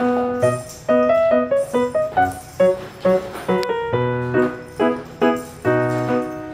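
Background music: a light melody of short notes that each fade quickly.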